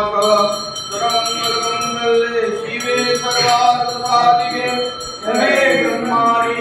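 Male voices chanting a Sanskrit hymn in long, held notes, with a brass hand bell ringing steadily behind the chant.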